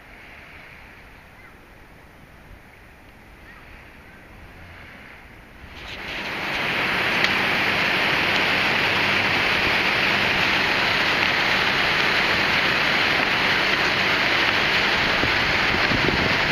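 Faint outdoor background, then about six seconds in a loud, steady rush of wind through trees comes up and holds.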